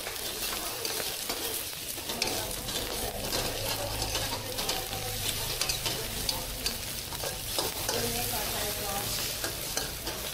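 Shrimp and pad thai ingredients sizzling steadily as they fry in a hot pan, stirred through with a utensil that gives small scrapes and clicks.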